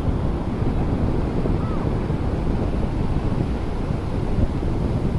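Sea waves washing on the shore, mixed with wind buffeting the microphone; a steady, even noise, strongest in the low end.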